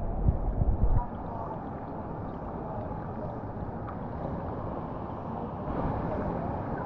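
Steady rushing of creek water flowing over rocks, with a few low thumps in the first second.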